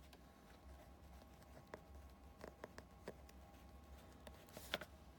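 Faint scratches and light taps of a pen writing on paper, scattered irregularly with a couple of sharper ticks near the end, over a low steady hum.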